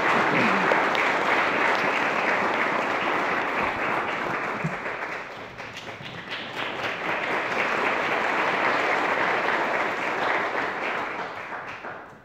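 Audience applauding, dipping briefly about halfway through, then picking up again and dying away near the end.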